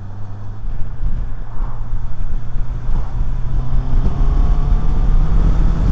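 Motorcycle engine and wind rumble picked up by a lavalier mic inside a helmet. The low rumble swells about half a second in, and from about halfway the engine note climbs slowly as the bike accelerates.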